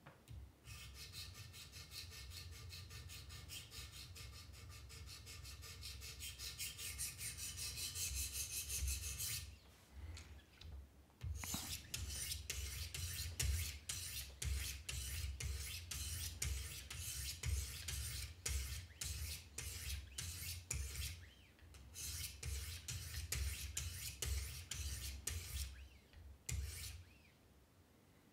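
Diamond stones of a Wicked Edge guided sharpener rasping along the steel edge of a Benchmade Mini Reflex II knife blade. First comes one long, steady stretch of scraping, then a pause, then quick back-and-forth strokes that break off briefly twice.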